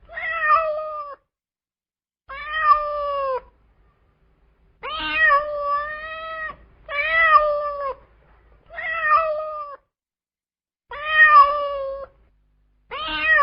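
A cat meowing over and over: about seven high, drawn-out meows, each lasting around a second, with short pauses between them.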